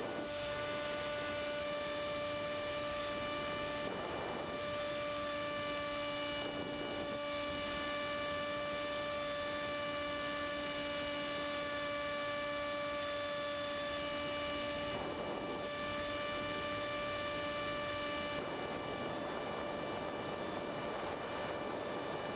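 Electric motor and propeller of a Multiplex EZ Star RC plane running with a steady whine, heard from the onboard camera. It drops out briefly around four and fifteen seconds in, and cuts off about eighteen seconds in, leaving a steady rush of air.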